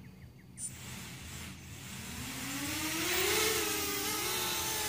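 Electric motors and propellers of a home-built quadcopter spinning up: a whir that starts about half a second in, rises in pitch and loudness over the next few seconds as the throttle is raised, then holds steady.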